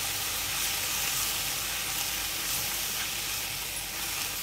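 Onions, tomato and ground spices sizzling steadily in oil in a non-stick frying pan as they are sautéed, stirred with a spatula that scrapes lightly a few times.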